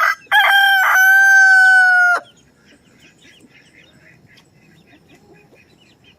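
A rooster crowing once, loud. The call starts in short broken notes and ends on a long held note that falls slightly in pitch and cuts off after about two seconds, with faint clucking from the flock afterwards.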